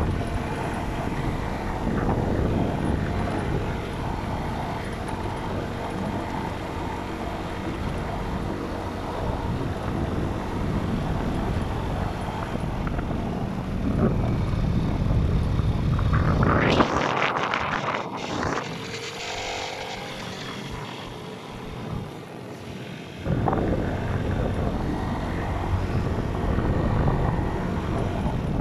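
Motorcycle engine running under way, with wind rushing over the microphone. About two-thirds of the way through, the engine sound drops away for several seconds, then comes back suddenly.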